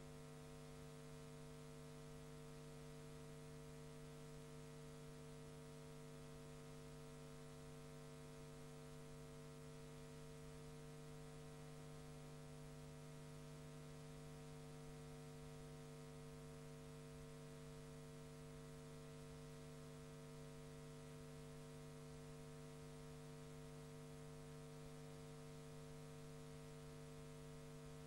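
Near silence: a faint, steady electrical hum with hiss on the recording, unchanging throughout.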